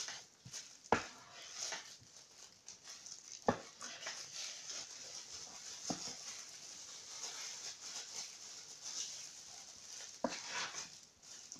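Kitchen knife cutting a block of butter into cubes on a plastic cutting board: soft rustling and scraping, with a few sharp knocks of the blade against the board, four of them, spread over the clip.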